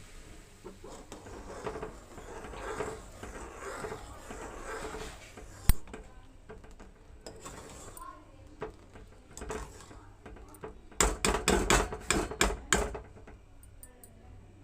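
Kitchen utensils clinking against cookware. There is one sharp knock about six seconds in. Near the end comes a quick run of loud clinks and knocks lasting about two seconds, as from a metal spoon striking a pot.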